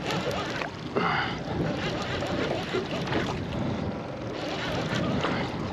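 Wind on the microphone and water slapping against a small fishing boat at sea, with a brief sharper sound about a second in.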